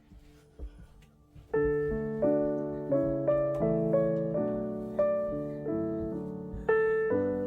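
Background piano music. After a soft first second and a half with a few faint knocks, it comes in about a second and a half in: notes struck one after another, each fading away.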